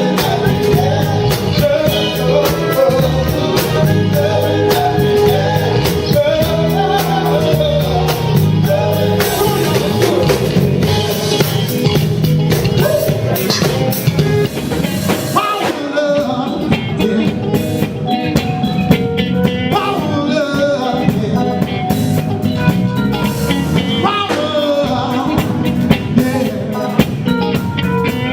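Live band playing a blues-flavoured song: a drum kit keeping a steady beat under bass, guitar and keyboards, with a singer's voice over it and a cymbal wash for a few seconds near the middle.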